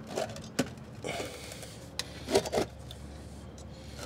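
A few light knocks and scrapes as the motor half of a Pentair/Sta-Rite Dura-Glas pool pump is slid into its pump housing, with a faint hum underneath.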